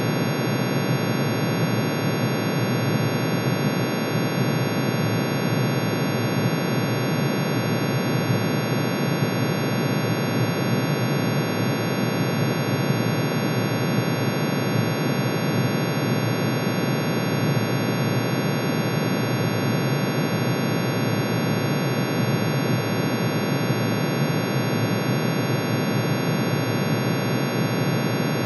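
A synthesized chord of many steady sine tones, the emission spectrum lines of iron pitch-shifted into hearing range and summed, so dense that it sounds like a constant, unchanging noisy drone with many high tones over it.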